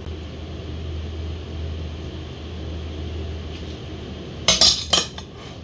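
Steady low hum, then a few sharp clinks of a utensil against a dish about four and a half seconds in.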